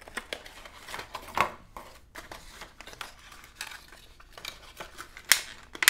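Stiff clear plastic packaging of a fishing lure being pulled open by hand, crinkling and crackling with irregular sharp clicks, the loudest about a second and a half in and again near the end.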